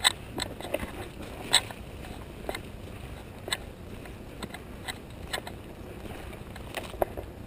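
Footsteps crunching through dry leaf litter at an irregular pace, about one sharp crunch a second, over a low rumble on the microphone.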